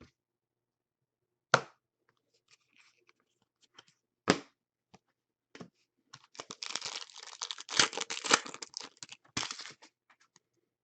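Two sharp taps, then about four seconds of tearing and crinkling wrapper: a pack of trading cards being torn open.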